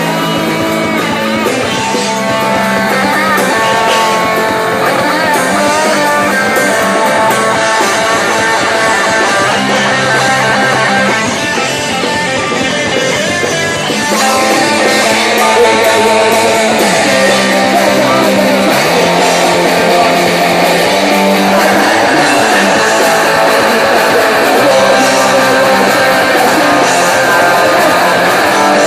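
Hardcore punk band playing live, with electric guitar to the fore. The playing eases slightly about halfway through, then comes back louder.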